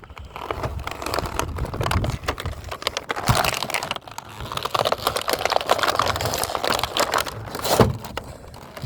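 Plastic toy packaging crinkling and clicking as a figure is handled and worked out of its box, with wind rumbling on the microphone.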